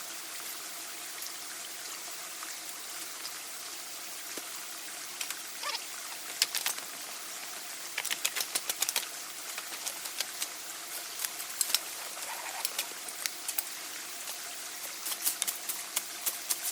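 Light, irregular clicks and taps of hand work on wood, coming in quick clusters over a steady background hiss.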